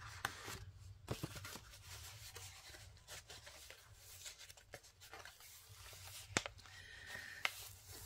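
Faint rustling and soft taps of paper and card being handled as a handmade paper journal's cards and pages are moved and turned, with a sharper click about six and a half seconds in.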